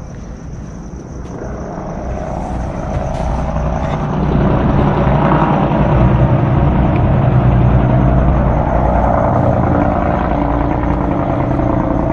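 Helicopter passing low overhead: a loud, steady rumble that builds over the first four seconds and then holds.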